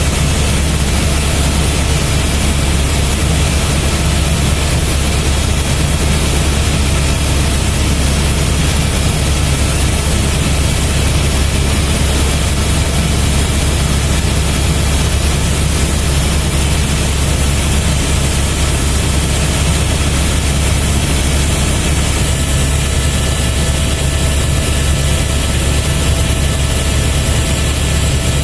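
Helicopter in flight heard from inside the cabin: a loud, steady low drone of rotor and engine with an even hiss over it.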